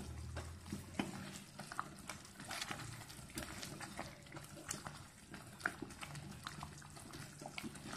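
Thick jaggery and coconut-milk payasam with sago bubbling in a pot while a wooden spoon stirs it, giving many small irregular pops and plops.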